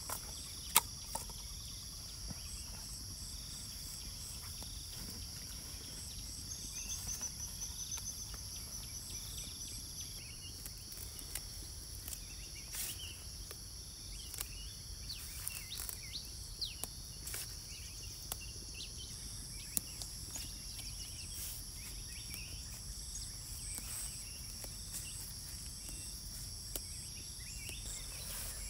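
Outdoor nature ambience: insects buzzing in steady high-pitched tones with pulsing chirps, scattered bird calls with a short trill, and a few sharp clicks, the loudest about a second in.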